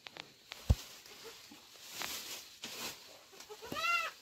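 Rustling of leafy fodder being handled, with one dull thump about a second in. Near the end comes a single short goat bleat that rises and falls.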